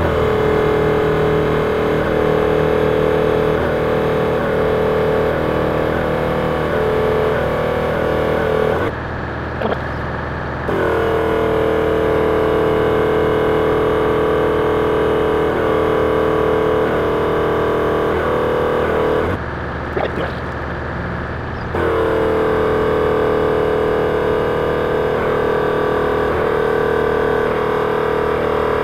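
Supacentre Thumper Max portable air compressor running steadily while pumping up a 4WD's tyres from off-road to road pressure. It breaks off twice for about two seconds and starts again, its pitch dipping and settling at each start, while a vehicle engine idles underneath.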